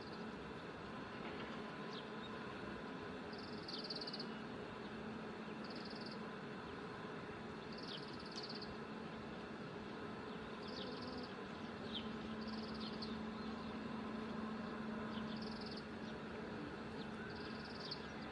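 Oriental greenfinch calling: a buzzy, trilled note repeated about every two seconds, mixed with short downslurred chirps.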